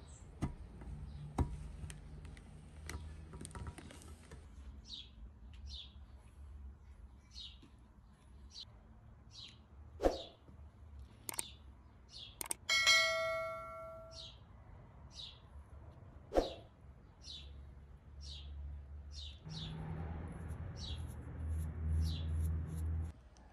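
A small bird chirps over and over, about once a second, while small metal stove parts click in the hands. About halfway through, one metal part rings out briefly, and a low rumble joins near the end.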